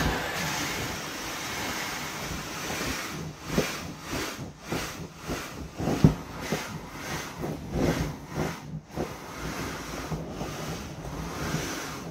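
Air hissing steadily out of the open valve of an inflatable vinyl rocking horse as it deflates under a rider; the hiss starts suddenly. Irregular squeaks and rubs of the vinyl come over it as the rider shifts, the loudest about halfway through.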